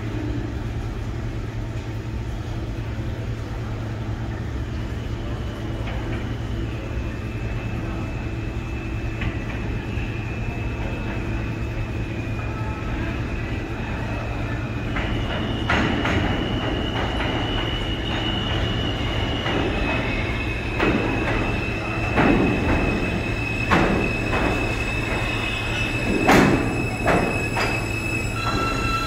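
An R160 subway train approaching and pulling into an underground station, growing louder over a steady low rumble. A high steady squeal sets in and strengthens about halfway through, and in the second half the wheels clack sharply over rail joints, loudest just before the train reaches the platform end.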